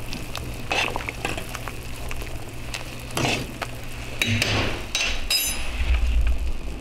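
Metal spoon stirring a brothy stew in a stainless steel stockpot, clinking and scraping against the pot, with a steady low hum for the first few seconds and a low rumble near the end.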